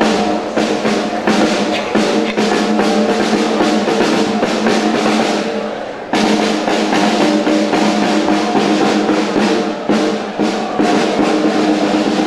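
Marching snare drum played with sticks in fast, dense strokes and rolls, over several steady held tones.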